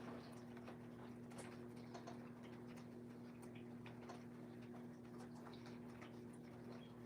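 Faint, irregular ticks of raindrops over a steady low electrical hum.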